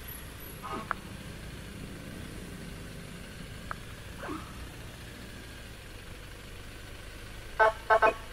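Vehicle engine running steadily under way, with two short, loud pitched blasts near the end.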